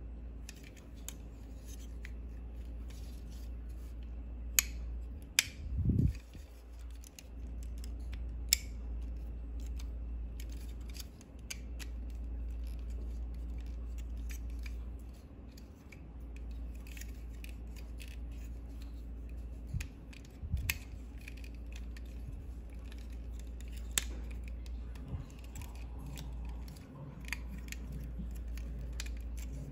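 Plastic parts of a Transformers Megatron action figure clicking, snapping and scraping as they are handled and folded from robot mode into jet mode, with a few sharper snaps between about five and nine seconds in. A steady low hum runs underneath.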